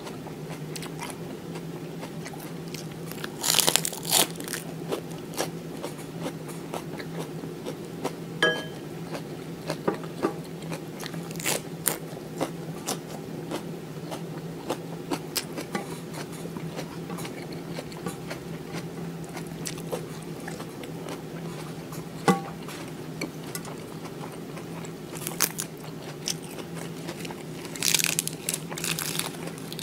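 Close-miked chewing and crunching of raw lettuce and vegetables, with crisp bites about four seconds in, over a steady low hum. Near the end, lettuce leaves rustle and crackle as they are torn apart by hand.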